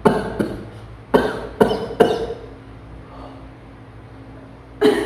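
A person's sudden explosive bursts of breath through the nose and throat, sneeze- and cough-like: five sharp bursts in the first two seconds and one more near the end.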